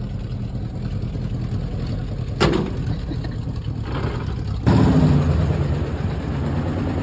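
Vehicle engine idling with a steady low rumble. A short sharp knock comes about two and a half seconds in, and the engine sound grows louder and rougher from just before five seconds.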